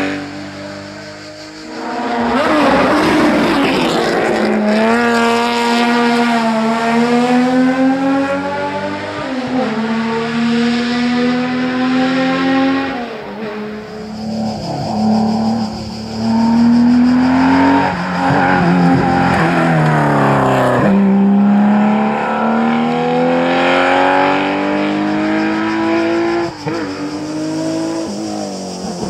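Historic rally car engines being driven hard on a special stage, the engine note rising through the revs and dropping sharply at each gear change or lift, over and over.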